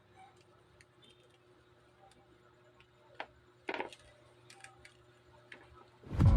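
A few faint, scattered clicks and light taps over quiet room noise, the loudest a pair about two-thirds of the way through. Background music starts loudly near the end.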